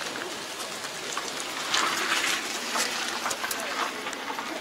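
Footsteps crunching on gravel, irregular crackling steps with a louder crunch about two seconds in, over faint background voices.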